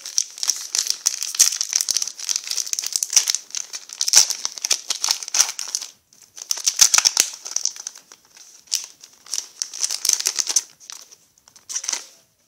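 Foil wrapper of a Pokémon booster pack being crinkled and torn open by hand, in bursts of crackling with short pauses.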